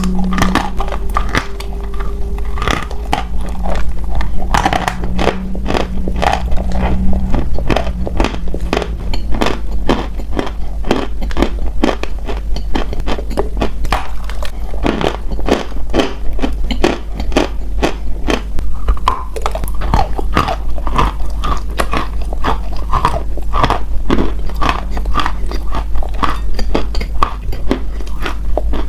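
A person biting and crunching hard edible earth close to the microphone: dense, sharp crunches, several a second, over a steady low hum.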